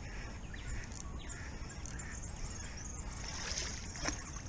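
Quiet creek ambience: scattered faint bird chirps over a low steady background, with light water sloshing around a kayak.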